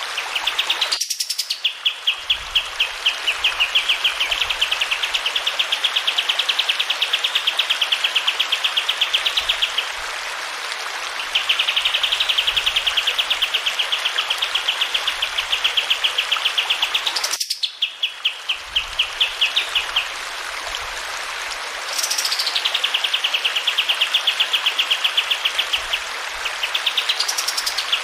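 Kapas tembak singing long rolling trills: very fast repeated high notes, each phrase several seconds long and opening with a quick upward sweep, over a steady hiss of flowing water.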